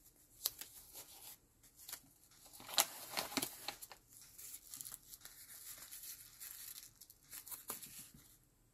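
Small pieces of paper and card being handled by hand: soft rustling and crinkling with scattered light taps, busiest around three seconds in.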